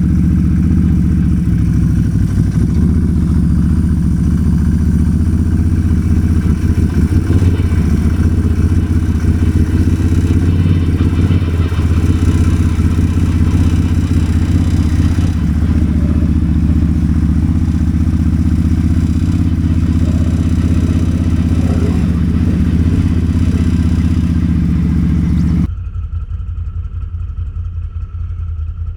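ATV engine running steadily under way, loud and low-pitched, then dropping abruptly to a quieter, lower running level about three seconds before the end.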